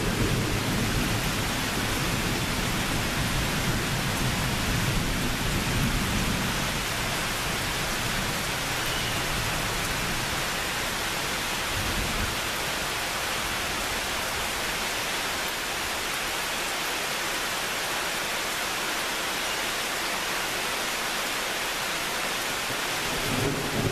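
Steady rain falling, with a low rumble of thunder that fades away over the first several seconds; another rumble of thunder starts near the end.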